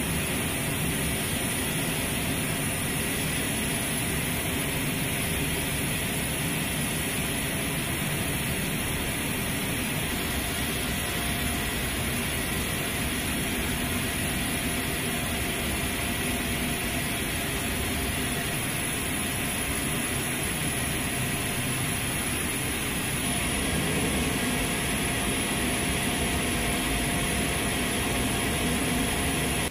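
A/M32A-60 gas turbine ground power cart running with a steady whine over a noisy rush, getting a little louder about three-quarters of the way through.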